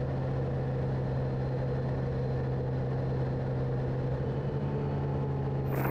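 Light aircraft's engine and propeller running steadily, heard from inside the cockpit on approach to land: a constant low hum with no change in power.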